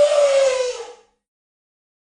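An elephant trumpeting once, a single harsh call of about a second with a slightly falling pitch.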